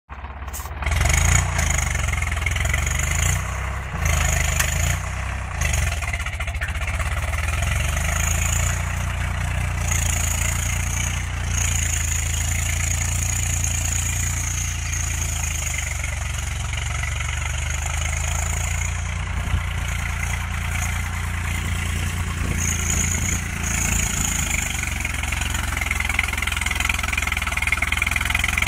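Swaraj 744 FE tractor's three-cylinder diesel engine running steadily under load as it pulls a disc harrow through the soil.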